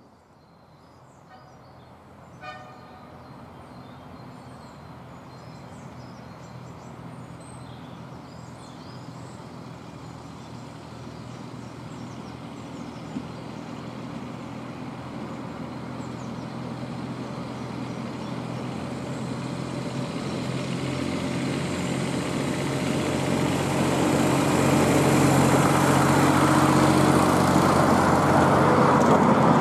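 Fenlow 4w-4wDH diesel-hydraulic miniature railway locomotive approaching with its train, the engine's steady note growing louder until it passes close near the end. It gives a short horn toot about two and a half seconds in.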